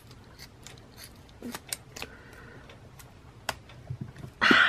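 Scissors snipping through a rubber-and-plastic squishy toy's head: a string of short, irregular clicks and snips. A low thud comes about four seconds in, and a brief louder noise follows just before the end.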